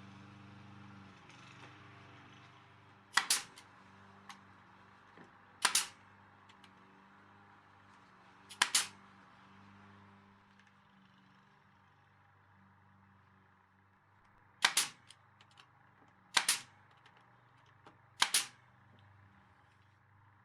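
Nail gun firing six single sharp shots, a few seconds apart, fastening the bridge's posts, over a low steady hum.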